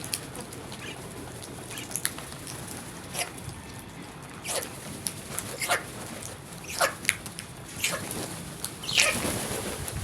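Crows cawing: short, harsh single caws, spaced apart and coming more often in the second half, the loudest about nine seconds in, over a steady background hiss.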